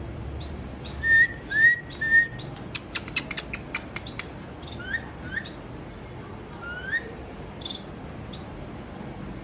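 Three short, loud rising whistles about a second in, then a quick run of sharp clicks, then a few fainter rising whistles.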